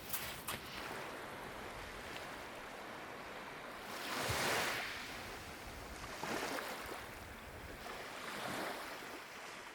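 Sea waves breaking on a beach: a steady wash of surf with three waves swelling up and falling away, the largest about halfway through.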